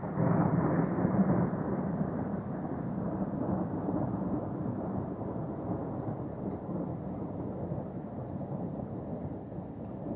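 Thunder: a loud peal breaking at the start, then a long rolling rumble that slowly fades.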